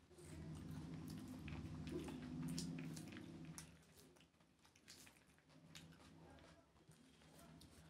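Close-up eating sounds: chewing and the wet squish of rice being mixed by hand with curry, heard as scattered soft clicks and smacks. A low steady hum lies under the first three and a half seconds.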